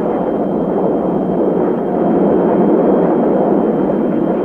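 Steady jet engine noise from A-10 Thunderbolt II aircraft in flight, with their twin TF34 turbofans. It is an even, dull rumble with no rise or fall.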